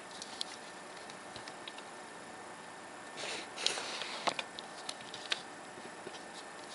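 Faint handling noise: scattered light clicks and ticks, with a short rustle about three seconds in followed by a sharper click.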